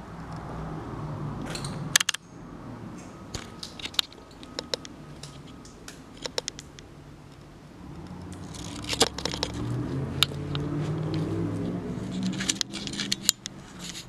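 Footsteps crunching and scuffing over a debris-strewn floor, with scattered sharp clicks and knocks. The loudest clicks come about two seconds in and again around nine to ten seconds.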